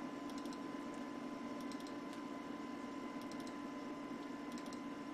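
Packard Bell Legend 406CD desktop computer running with a steady hum from its fans and hard drive, with several faint light clicks scattered through it.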